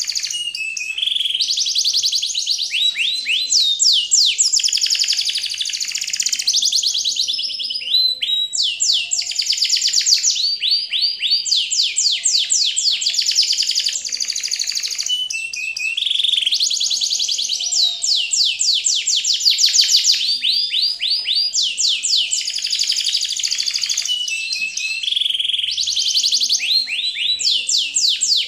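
Birdsong: long phrases of fast trills of high chirping notes, one after another without a break.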